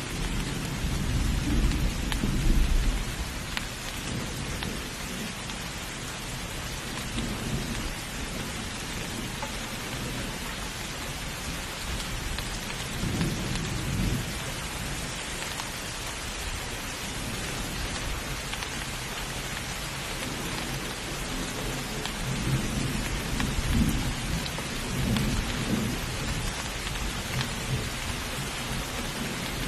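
Steady heavy rain hissing, with low rolls of thunder rumbling at the start, again around the middle and several times near the end.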